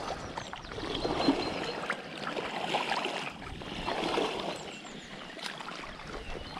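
Shallow lake water swishing and sloshing around someone wading, in a few slow surges about a second apart.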